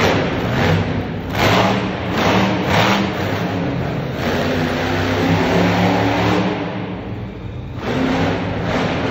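Monster truck engine revving hard in repeated blasts, its pitch rising and falling as the truck is driven around the arena. It eases off for a moment about seven seconds in, then picks up again.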